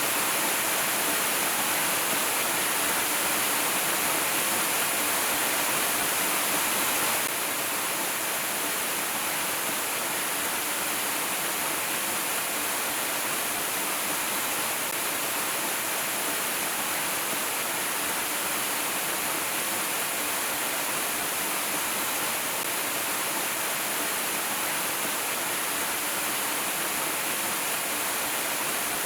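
Waterfall: a steady rush of falling water with a bright, hissing edge, dropping slightly in level about seven seconds in.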